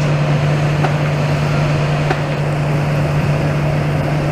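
Demolition excavator's diesel engine running steadily with a loud, even drone, just after being started back up.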